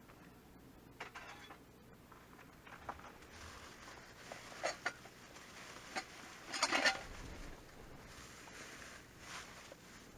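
Quiet rustling and a few light clicks and knocks as things are handled, with the loudest rustling bursts near the middle.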